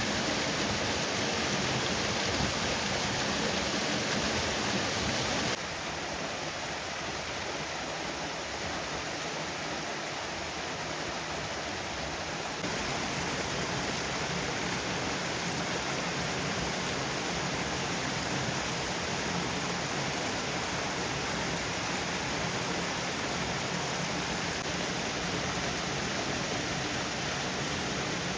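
Waterfall: a steady rush of falling water that drops in level suddenly about five seconds in and comes back up about halfway through.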